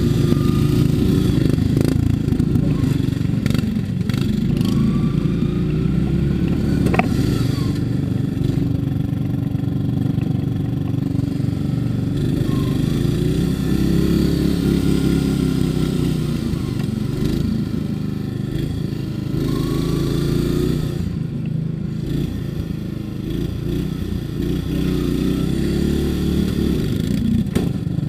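Engine of a modified riding lawn mower running hard, its speed rising and falling over and over as the throttle is worked.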